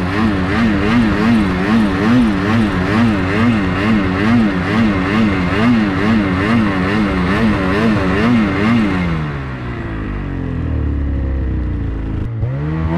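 Snowmobile engine revving up and down in quick, even swells about twice a second. About nine seconds in it winds down to a low, steady run, then picks up again right at the end.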